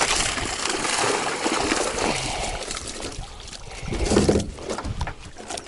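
Water pouring and trickling while a catch of crucian carp is handled for weighing. The water thins out after about three seconds, and there is some handling noise about four seconds in.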